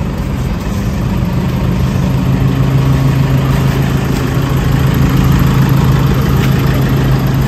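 Toyota minibus engine idling at the kerb, a steady low hum that grows louder about two seconds in.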